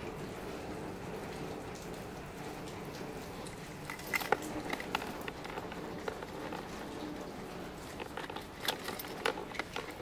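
Kymco Racing 150 scooter's single-cylinder four-stroke engine idling steadily and quietly, with a few sharp clicks about four seconds in and a cluster of clicks near the end.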